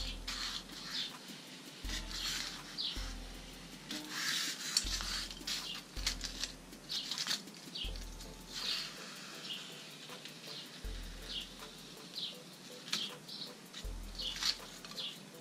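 Light scraping and rustling as polystyrene foam pieces are handled and slid over a plywood table, with short high bird-like chirps repeating throughout. A deep hum pulses on and off every second or two.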